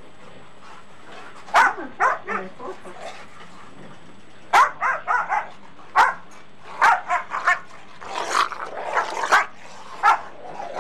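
A dog barking repeatedly in short barks, often several in quick succession, with pauses of a second or two between bouts.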